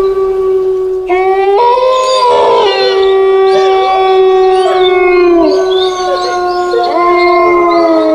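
Several long, drawn-out canine howls overlapping, one held note throughout with further howling voices joining about a second in and again near the end.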